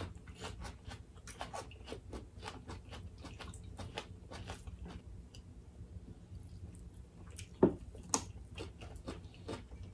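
Close-miked chewing and crunching of food, including raw red onion, with small wet mouth clicks scattered throughout. One louder, sharper bite comes about three-quarters of the way through.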